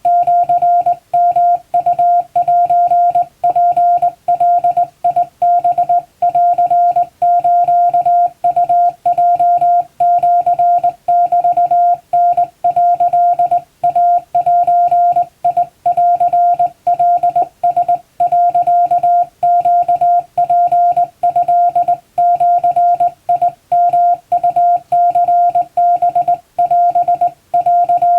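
Japanese wabun Morse code sent by hand on a straight key: a single steady CW beep keyed on and off in dots and dashes, with short gaps between characters.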